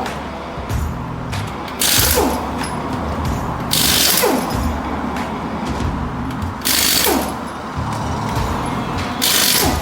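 Pneumatic air tool in a tyre shop, run in short hissing bursts about every two to three seconds, each ending in a falling whine as it spins down. Background music plays underneath.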